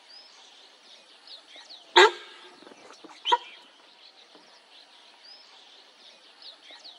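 Sambar deer alarm call: a loud, short honk about two seconds in, then a fainter call about a second later, over background birdsong. The call is the sambar's warning at the tiger.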